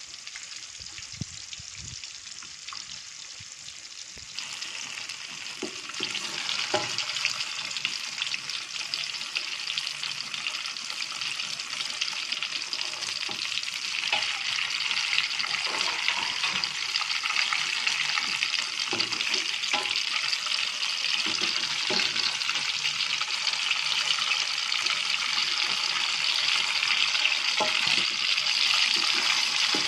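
Banana pieces deep-frying in hot oil in a wok, a steady crackling sizzle that gets louder about four seconds in. A metal spatula turning the pieces scrapes and knocks against the pan now and then.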